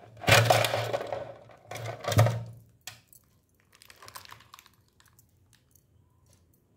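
Handling noise as a beaded necklace is lifted off a display bust: rustling with fine clicks, in two loud bursts within the first two and a half seconds, then only faint light clicks.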